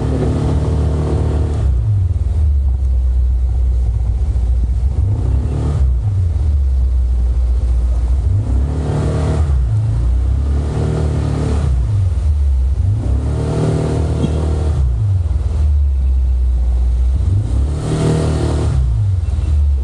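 Honda ADV150 scooter's single-cylinder engine running at low speed, its pitch rising and falling several times as the throttle is opened and eased off.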